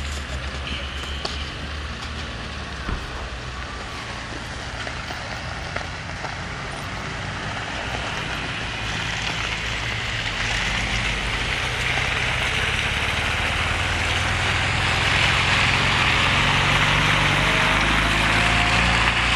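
Off-road 4x4 engines running as the vehicles drive along a slushy, icy snow track, with a hiss of tyres through wet snow and slush that grows louder from about halfway through as a vehicle approaches. Near the end an engine note rises as it is revved.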